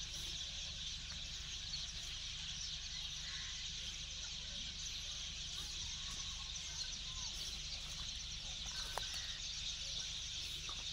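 Rural outdoor ambience: a steady high-pitched hiss with a low rumble underneath, a few faint bird chirps, and a click about nine seconds in.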